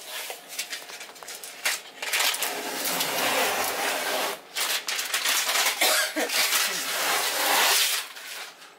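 A hand rubbing and pressing across the floor, smoothing down black tape laid over the seams of a painted plank subfloor. The rough rubbing and scraping starts about two seconds in, goes on unevenly, and stops just before the end.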